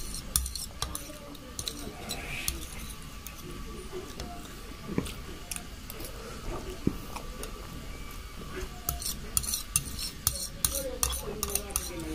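Metal fork clinking and scraping against a plate of noodles in broth: scattered sharp clinks that come thicker toward the end.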